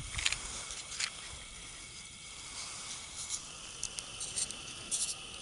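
A homemade model steamboat's boiler and steam engine hissing steadily, with irregular sharp crackles and pops that come more often near the end.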